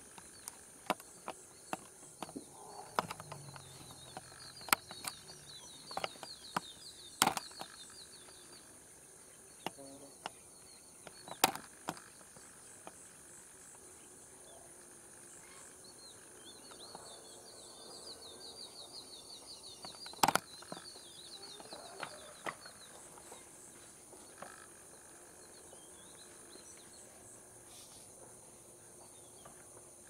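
Sharp, irregular clacks of two Asian bull elephants' ivory tusks knocking together as they spar, clustered in the first twelve seconds with a loud one about twenty seconds in. Under them runs a steady high insect drone with chirping trills.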